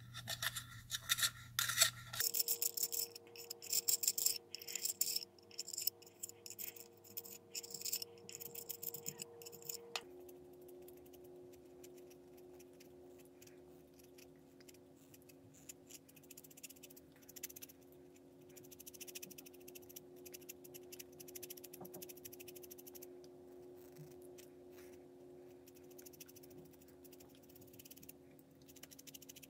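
Small hand-held Caran d'Ache pencil sharpener shaving a pastel pencil: quick rasping strokes of the blade cutting wood and core, loudest and densest over the first ten seconds, then fainter and sparser. A faint steady hum runs underneath.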